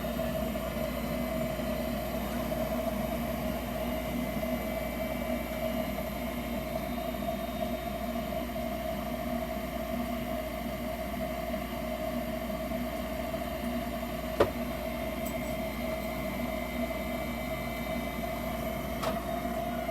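Heil gas furnace running with its burners lit: a steady hum and rush. A single sharp click comes about 14 seconds in, and a fainter one near the end.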